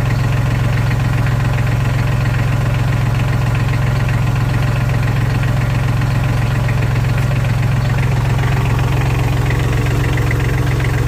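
Massey Ferguson tractor engine idling steadily, running to keep the power steering line under pressure while a newly replaced fitting is checked for leaks.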